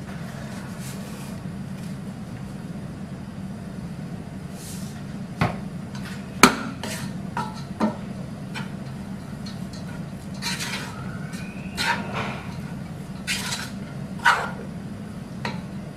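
Wooden spatula stirring and tossing cooked basmati rice in a nonstick pot: soft scraping with scattered knocks of the spatula against the pot, the sharpest about six and a half seconds in. A steady low hum runs underneath.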